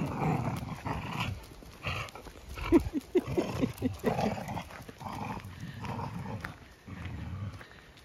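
Two dogs growling at each other as they tug at a shared stick of timber in play, with a quick run of short higher-pitched calls about three seconds in.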